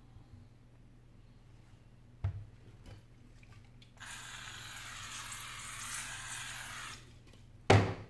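Aerosol spray can hissing steadily for about three seconds as it sprays onto a cracked iPad screen. A soft knock comes before the spray, and a loud thump follows it near the end.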